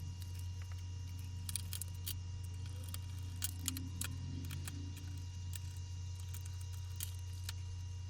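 Steady low electrical hum with scattered light clicks and ticks of small laptop parts and screws being handled during reassembly.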